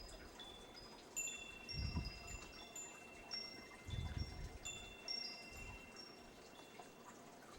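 Wind chimes ringing: many clear, high metallic tones at different pitches, struck at random and ringing on over one another. Low rumbles come about two and four seconds in.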